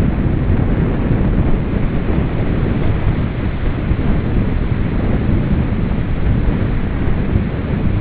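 Gusty wind buffeting the microphone, heaviest in the low end, over the wash of surf breaking on a rocky, pebbly beach.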